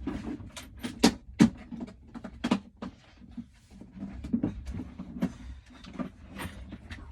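Irregular knocks, clicks and clatter, two of them louder about a second and a half in, from objects being handled and moved while searching for a tool battery, over a low steady hum.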